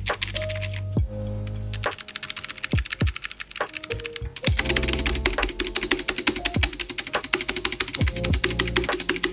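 Fast typing on an AmazonBasics budget mechanical keyboard, a clatter of key clicks that thickens into a dense run about two seconds in, over background music with low bass tones.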